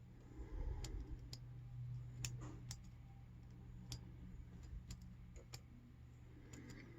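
Faint, irregular metallic clicks and ticks of a lock pick working the pins of a Yale all-brass padlock, about eight or nine in all, over a low steady hum.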